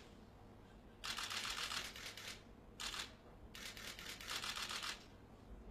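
Press photographers' camera shutters firing in rapid continuous bursts, three runs of fast clicking: one of over a second starting about a second in, a short one around three seconds, and another of about a second just after.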